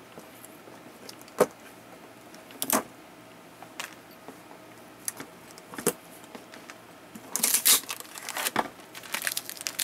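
Hands handling a plastic crate and a clear acrylic panel: a few separate light clicks and taps, then from about seven seconds in a louder run of plastic crinkling and clicking as the acrylic sheet and its tape are lifted off the crate.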